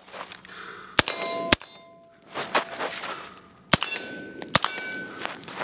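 Four shots from a suppressed 8-inch .223 AR pistol, in two quick pairs: one about a second in and another half a second later, then two more near the four-second mark. Each pair is followed by a metallic ring that hangs on for up to a second.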